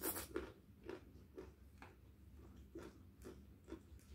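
Close-miked chewing of a mouthful of rice eaten by hand: faint, wet mouth clicks and squelches, about two a second, with a short pause midway.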